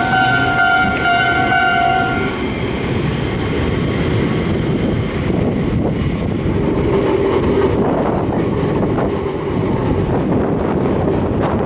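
Enoden 500-series tram running on street-level track: a steady high two-tone horn sounds for the first two seconds or so as a car passes close by. After that comes the continuous rumble and clatter of tram wheels on the rails as another car approaches.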